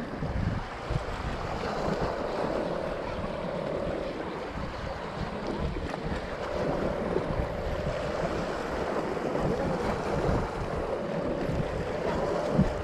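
Wind buffeting the microphone over small waves washing against a rocky shore, a steady noisy rush with low rumbling gusts.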